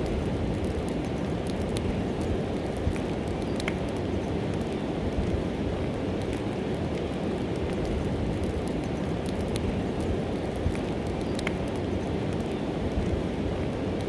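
Wood campfire burning with occasional sharp pops and crackles, over a steady low rush of a fast-flowing river.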